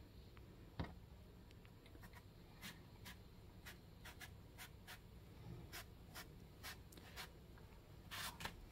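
Faint, short scraping strokes of a kitchen knife working along a raw eggplant held in the hand, roughly one every half second, with a few louder strokes near the end.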